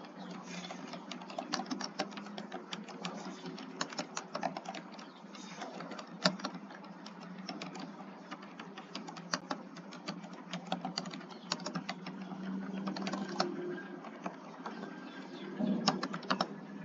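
Computer keyboard being typed on quickly and continuously, a dense, uneven run of key clicks at a typing speed of about 51 words per minute.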